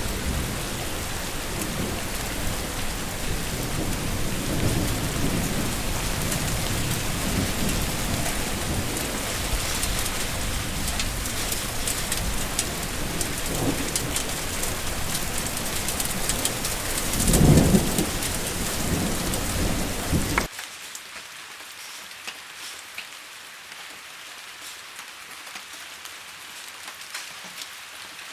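Heavy rain with low rolling rumbles of thunder, the loudest about 17 seconds in. About 20 seconds in it cuts abruptly to quieter rain pattering and dripping in a rain gutter, with sharp individual drops.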